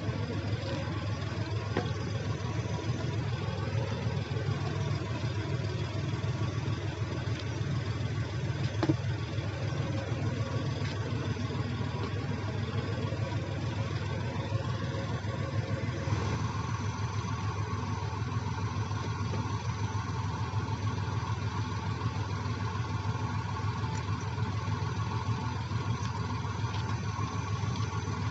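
Earthmoving machinery's diesel engine running steadily. About halfway through the sound shifts, with more mid-pitched engine noise.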